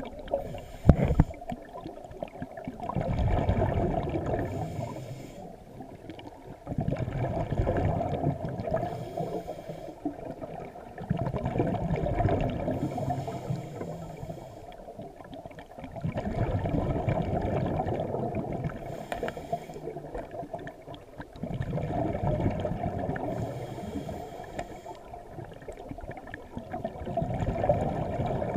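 Scuba diver breathing through a regulator underwater: a bubbling rush of exhaled air swells and fades about every four to five seconds. A sharp knock comes about a second in.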